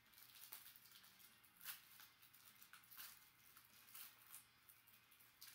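Faint crinkling of a plastic trading-card pack wrapper being peeled and torn open by hand, a few soft rustles a second or so apart.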